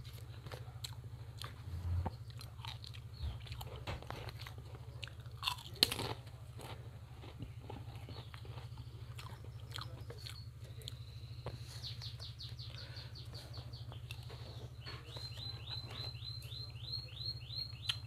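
Close-miked chewing and crunching of a mouthful of lotek, a Javanese vegetable salad with peanut sauce, with a sharp click about six seconds in. From about halfway through, a small bird chirps in quick repeated falling notes.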